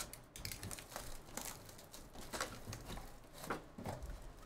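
Clear plastic shrink-wrap being torn off a sealed trading-card hobby box and crinkled in the hands: a run of irregular crackling rustles.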